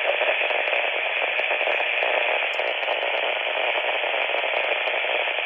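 Radio static hiss from a Motorola Minitor VI pager's speaker, playing back a stored message that holds only open-channel noise and no voice. The hiss is loud and steady and cuts off at the very end.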